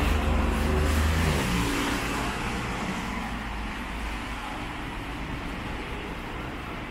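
A motor vehicle passing close by with a low engine rumble that drops away after about a second and a half, leaving street traffic noise that fades steadily.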